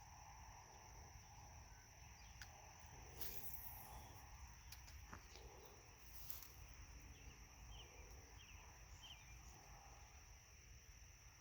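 Near silence with a steady high-pitched insect trill, plus a few faint clicks and short chirps.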